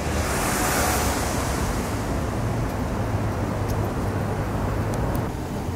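Steady low outdoor rumble of wind on the microphone and distant city traffic, with a rushing hiss that swells and fades in the first second or so.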